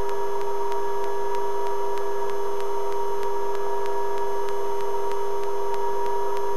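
Helicopter turbine and transmission whine heard through the cockpit intercom: a steady whine of several fixed pitches, with a faint even ticking about four times a second.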